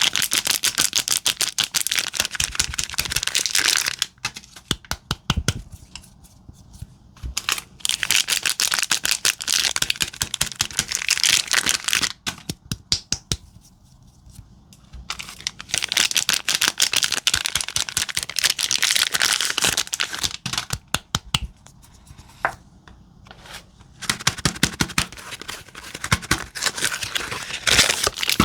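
Wrappers crinkling and tearing as bars of soap are unwrapped by hand, in stretches of dense crackling a few seconds long with quieter pauses between them.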